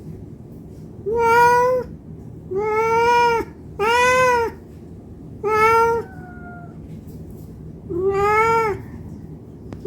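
Domestic cat meowing five times, each call long and drawn out with short gaps between; typical of a hungry cat asking for food.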